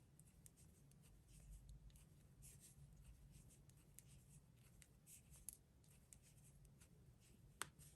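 Faint, irregular light clicks and rustling of knitting needles working cotton yarn, with one sharper click near the end.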